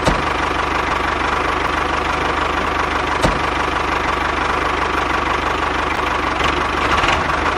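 Model tractor's small drive motor running steadily as it pulls its trolley, with a steady whine over a dense, fast low rattle.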